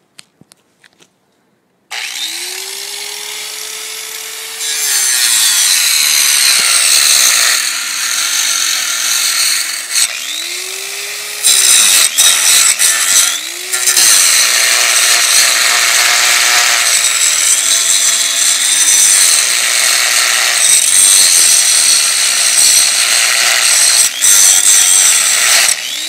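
Handheld angle grinder starting up about two seconds in, its motor whine rising and then dropping as the disc bites into a bike lock. The cutting disc grinds the metal loudly, easing off and starting again a few times.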